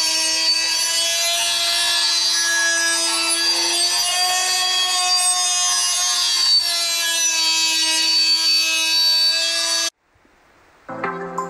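A power tool grinding a lawn mower blade to sharpen it: a steady, loud whine with a gritty hiss, wavering slightly in pitch, which cuts off abruptly about ten seconds in.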